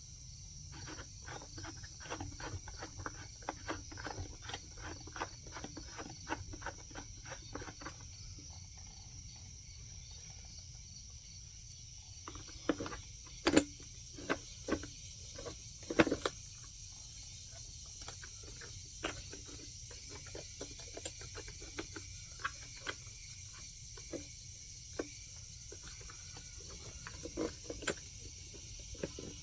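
Hand handling of an electric chainsaw's bar, chain and tool-free fittings: a fast run of light clicks for several seconds, then a few louder knocks and scattered clicks. Steady high insect buzzing carries on behind.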